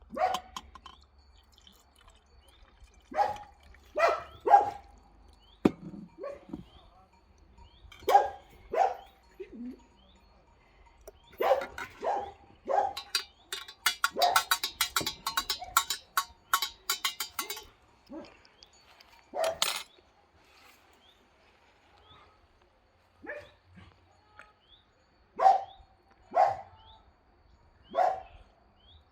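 A dog barking in short single barks and pairs, spaced irregularly with pauses of a second or several, with a rapid rattling clatter for a few seconds in the middle.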